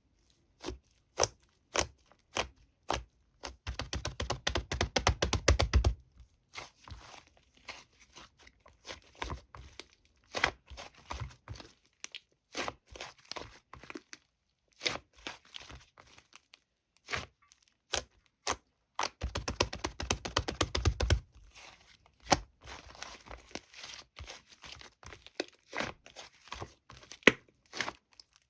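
Thick cream-textured slime being pressed and worked by hand, giving sharp clicks and pops. Two spells of dense crackling run a few seconds each, about four seconds in and again about twenty seconds in.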